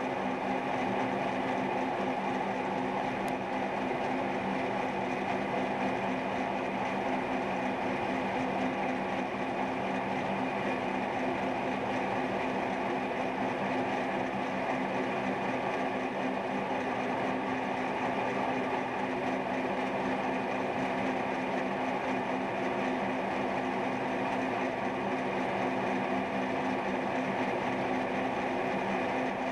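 Milling machine running steadily with its cutter taking a cut in steel as the workpiece is fed round on a rotary table to form a spherical socket: an even mechanical hum with several held tones.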